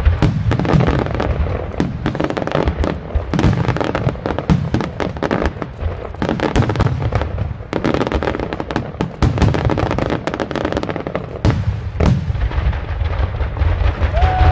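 Aerial firework shells bursting in rapid succession: a dense, unbroken run of sharp bangs and crackling over a deep rumble.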